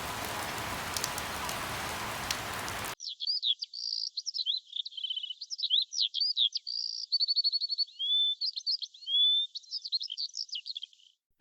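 Steady rain for about three seconds, cut off abruptly. A songbird follows, singing a fast, varied song of chirps, trills and short whistles.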